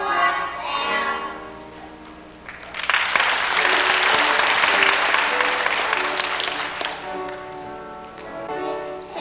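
Children singing over music, broken by about four seconds of audience applause in the middle, after which the singing and music go on.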